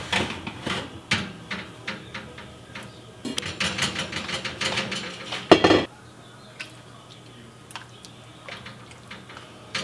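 Heavy Crofton enameled cast iron braiser and its lid clattering against metal as the lid is lifted off in the open oven, with one loud clank about five and a half seconds in. After that, a few light clicks of a spoon against the pot.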